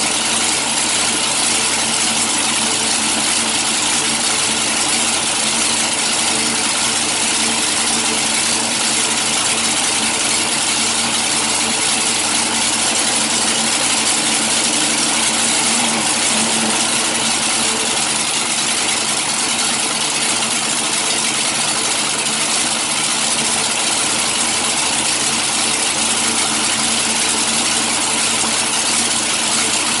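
Supercharged V8 engine of a front-engine dragster idling steadily, warming up, since it takes a long time to build heat.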